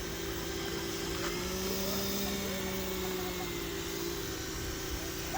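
Small 12-volt electric motor of an RC construction truck running steadily as a hum. Its pitch rises a little in the middle, eases off, and then stops suddenly near the end.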